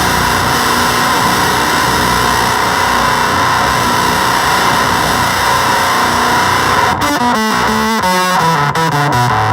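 Electric guitar played through a Gremlin Machine Shop Avedissian octave fuzz pedal: a noisy, sustained fuzzed tone, then, about seven seconds in, a run of notes stepping down in pitch.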